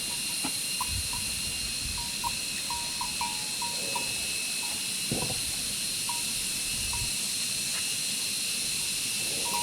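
Steady high-pitched drone of forest insects, with a few short chirps and a couple of dull knocks.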